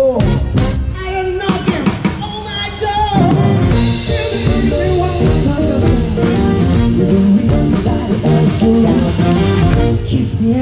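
Live band music heard close to the drum kit: drums and cymbals keeping a steady beat under electric guitar and a singing voice. The band fills out about three seconds in, with the cymbals struck more densely from then on.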